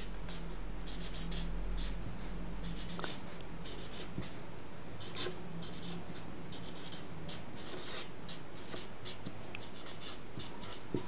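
Permanent marker writing on paper in many short strokes, with a low steady hum beneath.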